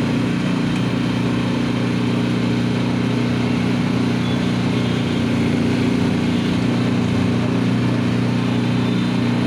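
Motor-driven sugarcane juice crusher running steadily with a constant hum, its rollers pressing stalks of cane.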